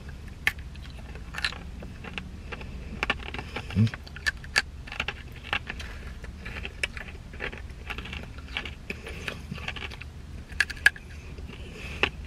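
Crunchy mesquite sweet-potato-fry snacks being bitten and chewed, with the crinkle of the snack bag: irregular sharp crunches and crackles over a low steady hum.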